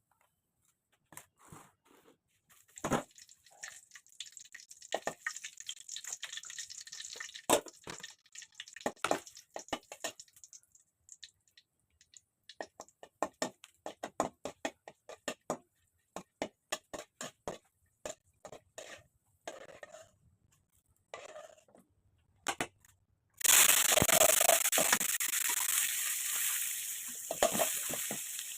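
Kitchen handling sounds: a long run of separate knocks and clicks, then, near the end, a sudden loud sizzle as food goes into a hot pan and starts frying.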